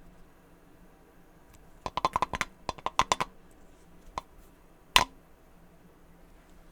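Light clicks and taps from a boxed figure being handled: a quick run of about a dozen over a second and a half, then two single taps, the second the loudest, about five seconds in.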